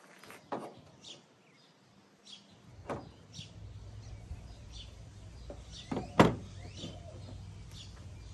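Sharp knocks and clicks of a propane torch and a bottle being handled and set down on a pickup's tailgate, the sharpest about six seconds in. Birds chirp throughout, and a low steady hum comes in about two and a half seconds in.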